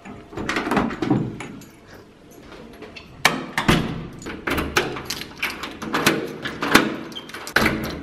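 A door's metal lever handle, latch and key lock being worked: a string of sharp metallic clicks and clunks, with louder knocks from about three seconds in as the door is opened, pulled to and locked with a key.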